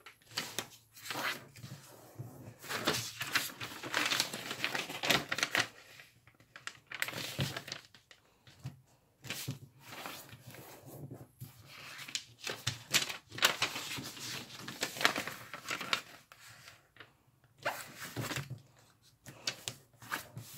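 Sheet of origami paper rustling and crinkling as it is folded into a cupboard fold and creased flat by hand, fingers sweeping along the folds in many short, irregular strokes.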